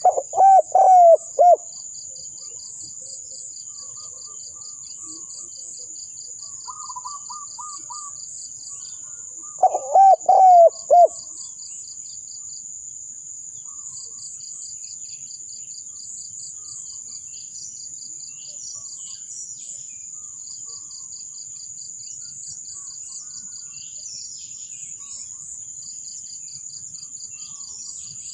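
Spotted dove cooing: two phrases of about five low hooting notes each, one at the start and one about ten seconds in. A steady high insect trill runs beneath.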